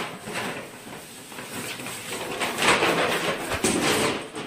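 Rustling and scraping of a box on a tiled floor as a cat struggles with its head stuck inside it.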